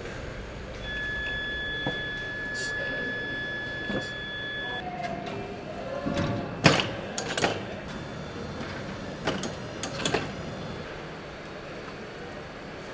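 Car assembly-line machinery and tools: a steady high electronic tone for about four seconds, then a handful of sharp metallic knocks and clicks, the loudest about seven seconds in.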